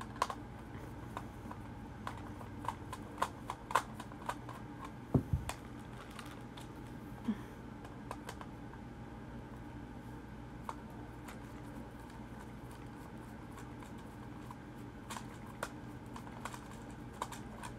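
Scattered small clicks and taps of a screwdriver and fingers working the plastic battery cover of a 2012 Furby, with a dull thump about five seconds in.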